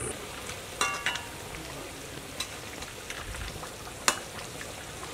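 Steady sizzle of food cooking in a pan over a wood fire, with a few scattered light clicks and a brief metallic clink about a second in.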